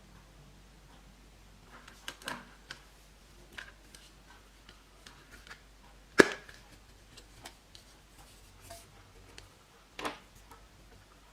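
Slime being squeezed and worked by hand: scattered sticky clicks and pops, the loudest a sharp snap about six seconds in.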